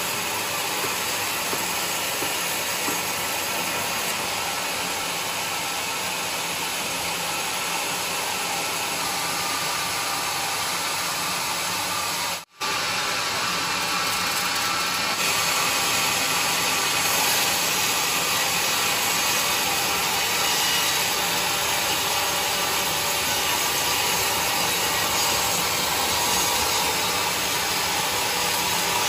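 Sawmill running steadily, its saw cutting through a mahogany log. The noise drops out for a split second about twelve seconds in, then comes back slightly louder.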